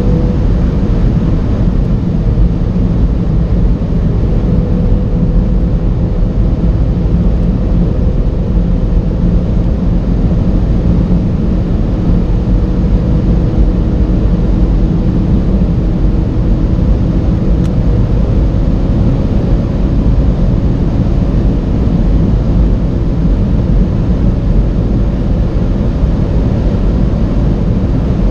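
Heavy wind and road roar inside the cabin of a tuned Audi RS3 8V at over 300 km/h, with the turbocharged 2.5-litre five-cylinder engine running at high revs under load beneath it. The roar is loud and steady throughout.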